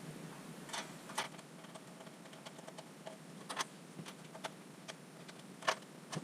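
Faint, irregular light clicks and taps of hands handling small parts and tools, with a few close together about a second in and again around the middle.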